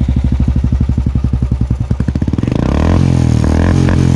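Royal Enfield Classic 350's single-cylinder engine breathing through an aftermarket Bazooka silencer: a heavy, even thump at idle, then revved up a little over two seconds in, the beat quickening into a higher note that holds.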